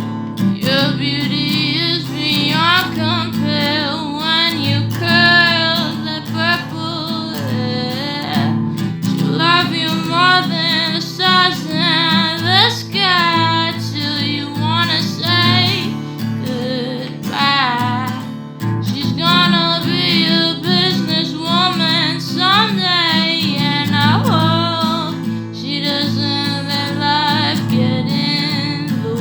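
A woman singing a song with acoustic guitar accompaniment; the voice pauses briefly a few times while the guitar carries on.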